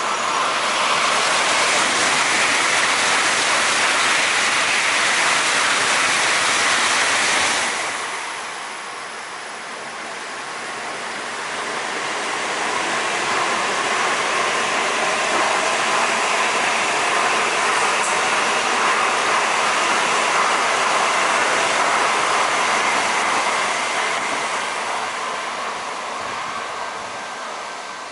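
N700-series Shinkansen bullet trains passing on the through tracks, a loud rush of air and wheel noise with no horn. The first pass cuts off sharply about seven seconds in, and a second train's rush builds up again, holds and fades away near the end.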